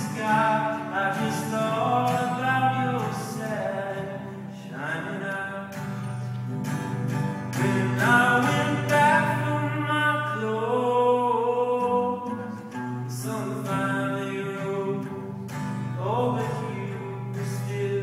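A man singing a slow song live, accompanying himself on acoustic guitar.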